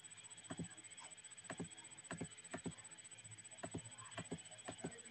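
Faint, irregular light clicks and taps, often in close pairs, a few a second, over a steady thin high-pitched whine.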